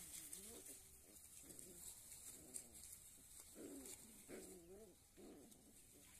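Young puppies whining and yelping faintly as they wrestle: a run of short rising-and-falling calls, about two a second, strongest around the middle.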